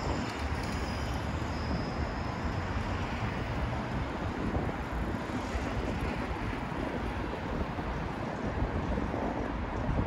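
Steady outdoor city noise: a rumble of distant traffic with wind buffeting the microphone.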